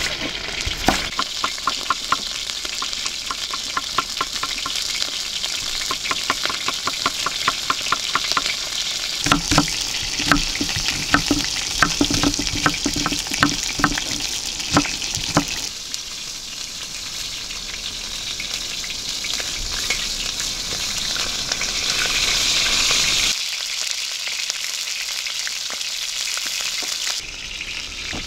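A knife slicing onions on a wooden board, a quick run of even taps that stops about halfway through, over a steady sizzle of chicken pieces frying in a pan.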